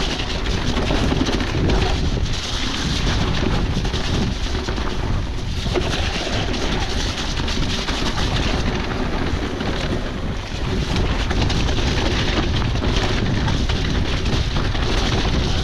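Wind rushing over the microphone as an electric mountain bike rides down a wet trail, with tyres rolling and the bike rattling over bumps throughout.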